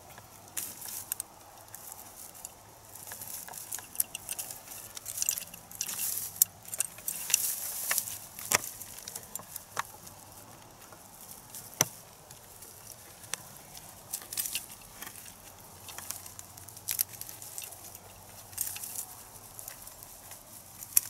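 Scattered metallic clicks and clinks of a steel trap cable and its quick-release fastener being handled, with rustling and crackling in dry grass.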